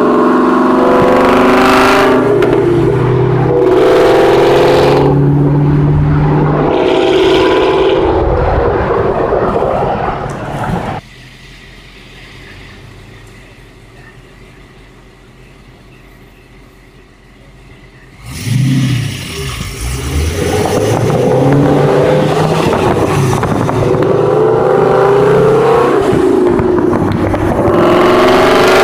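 2015 Ford Mustang GT's 5.0 Coyote V8 through a Corsa Extreme cat-back exhaust, running loud as it cruises and accelerates alongside, its pitch rising and falling with the throttle. Past the middle it drops to a much quieter steady sound for several seconds, then comes back suddenly with a sharp rev and stays loud.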